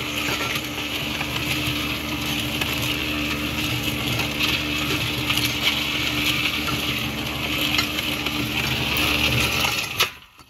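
Electric 4.2-cubic-foot cement mixer running as a parts tumbler: a steady motor hum under the constant clatter and grinding of rusty steel parts and angular media tumbling in the turning drum, scouring off the rust. It is a little bit loud, and it shuts off suddenly with a click near the end.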